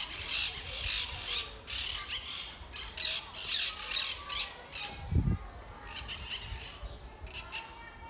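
Monk parakeets squawking: a rapid run of short, harsh, screechy calls, thinning out after about five seconds, with a brief low thump about five seconds in.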